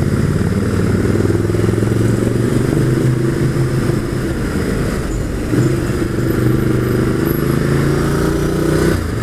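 Ducati Multistrada's twin-cylinder engine running at a steady pace on the move, its note lifting slightly about five and a half seconds in.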